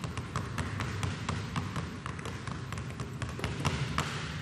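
Two basketballs being dribbled on a hardwood gym floor: a steady run of sharp bounces, about three a second.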